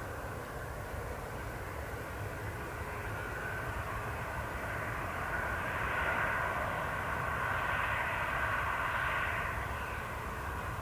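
Jet airliner engines running at taxi power, a steady whine and rumble that grows louder about halfway through and eases off near the end as the aircraft passes.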